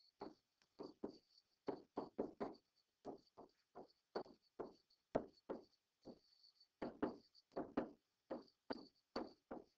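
Stylus tapping and scratching on a tablet screen while handwriting, heard as a string of short, faint knocks at irregular intervals, two or three a second.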